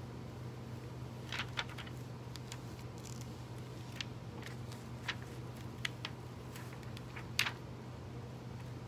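Clear carrier film of a heat-transfer foil crackling in small, scattered crackles as it is slowly peeled back off a T-shirt, the loudest crackle a little before the end. A steady low hum runs underneath.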